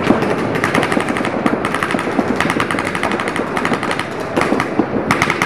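Paintball markers firing rapid strings of shots, many pops a second, from several guns at once with no break.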